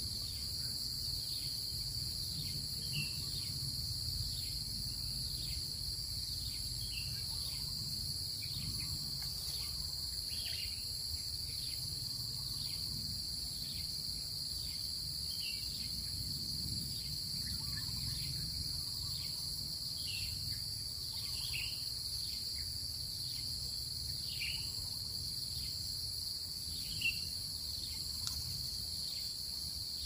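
Steady high-pitched insect chorus with a regular faint pulsing, with scattered short bird chirps over a low wind rumble.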